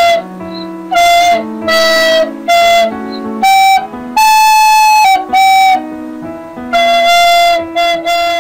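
Instrumental background music: a bright melody of held notes, one held longer near the middle, over sustained chords.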